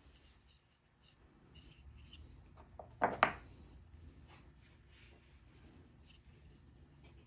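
Wooden drawknife handles being handled and turned over in the hands, with light rubbing and small clicks and a sharp double knock about three seconds in.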